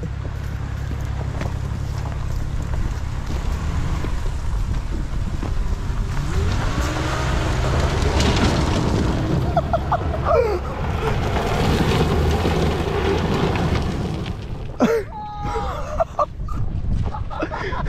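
A front-wheel-drive car's engine running hard as it is slid in reverse on gravel, with tyres spinning and loose rocks spraying up into the bumper. The gravel noise builds to its loudest in the middle, then eases off near the end.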